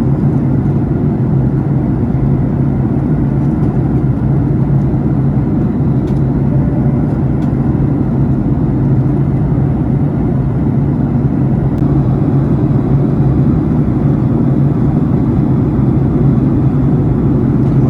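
Steady airliner cabin noise: the low drone of jet engines and rushing air heard from inside the passenger cabin, with a constant hum underneath.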